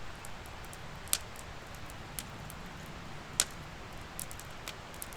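Wood campfire crackling and hissing, with scattered sharp pops, two louder ones about a second in and after three seconds.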